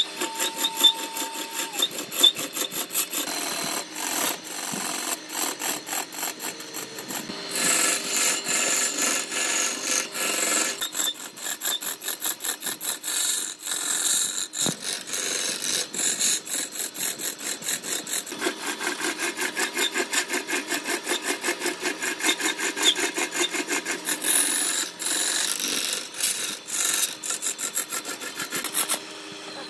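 Turning tool cutting into a large segmented wood blank spinning on a wood lathe: a loud scraping hiss that pulses rapidly and evenly. The cut stops near the end.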